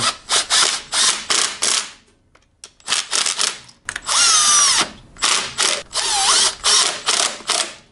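Cordless impact driver with a socket on an extension running in and tightening the stator mounting bolts on a GY6 scooter engine, in a series of short rattling bursts with brief pauses, one longer burst about four seconds in.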